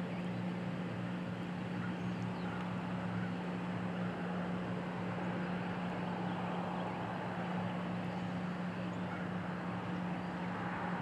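A steady low mechanical hum over a constant background rush, unchanging throughout.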